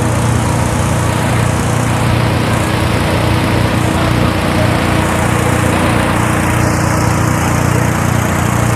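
Gas-engine hot-air balloon inflator fan running steadily: a continuous small-engine hum under the rush of the fan's air.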